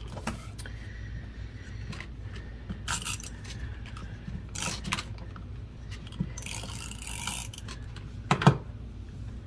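Plastic tape runner and cardstock being handled while taping a paper layer: scattered scrapes and rustles, with a sharp knock near the end.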